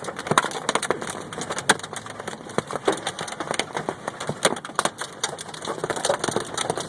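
Hailstones pelting a Mazda Miata: a dense, irregular clatter of sharp hits, with a few much louder cracks standing out, about half a second in, near the middle and past the halfway point.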